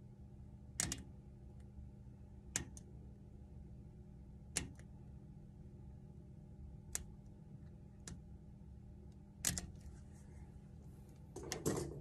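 Scattered sharp clicks and snaps, about seven spread over the stretch with a quick cluster near the end, as a leftover piece of plastic outer jacket is picked and pulled off the end of an LDF4-50A corrugated coax cable by hand. A steady low hum runs underneath.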